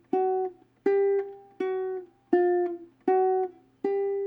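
Ukulele, single notes plucked one at a time about every three quarters of a second, six in all. Each note is stopped cleanly by easing the fretting finger off the string, with no string squeak or buzz on release; the last note rings on.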